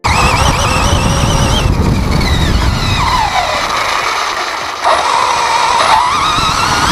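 WLtoys 104001 RC buggy's brushless 3650 6900 kV motor whining as the car is driven off-road, over a rough low rumble. The pitch falls as the car slows about two to three seconds in, then climbs sharply twice near the end as it accelerates.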